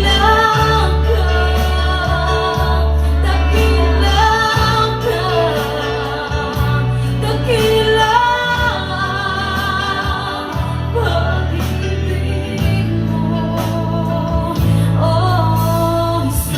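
Christian worship song: a voice singing a slow melody over instrumental accompaniment with held bass notes.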